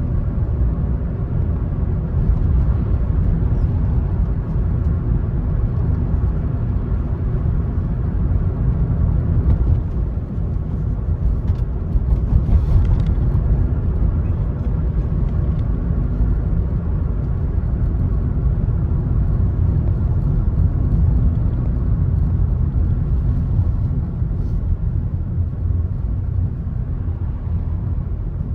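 Car driving at a steady speed: a continuous low rumble of engine and tyres on the road, with a faint steady hum above it.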